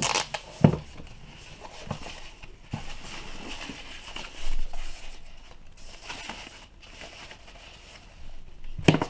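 Crinkling and rustling of the thin white protective wrapping sheet as it is pulled off a small cube-shaped alarm clock, with a few light knocks as the clock and its cord are handled.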